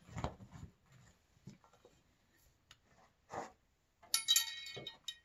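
Handling of a pulk sled's tow poles and nylon harness straps: a brief rustle and clatter at the start, a single knock about three seconds in, then a bright metallic clink and jingle near the end from the strap hardware.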